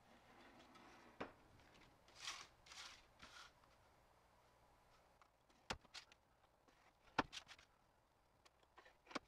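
Faint scratching of a steel scribe being drawn along the edge of a thin sheet-metal blank to mark a line: three short scrapes about two seconds in. These are followed by several sharp light clicks and taps as the metal sheet and the tool are handled and turned on the bench.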